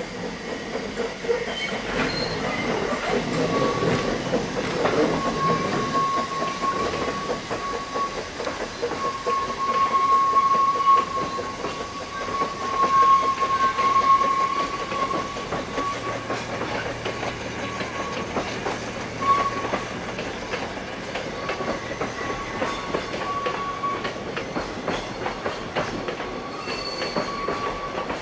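Narrow-gauge passenger carriages rolling slowly through a curve. The wheel flanges squeal in one steady note, over a run of clicks from the wheels crossing the rail joints.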